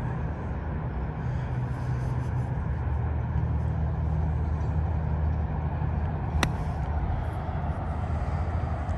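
Golf bunker shot: one sharp click about six and a half seconds in as the club strikes the ball out of the sand, taking very little sand, over a steady low rumble.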